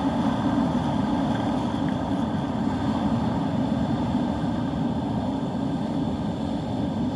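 Steady wind on the microphone mixed with surf: a constant, even low noise with no distinct events.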